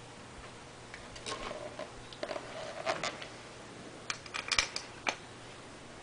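Small metallic clicks and scrapes of hand tools and parts being handled while a thermostat housing is fitted: a scraping cluster about a second in, then a few sharp clicks near the end.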